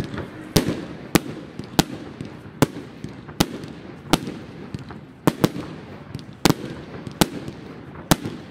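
Evolution Fireworks Rambam box cake firing at night: about a dozen sharp bangs as its shots burst in the air, coming irregularly one or two a second, including a quick cluster of three about five seconds in.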